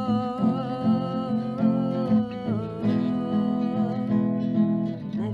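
Acoustic guitar strummed steadily through an instrumental break in a live song, with a long held melody line above it.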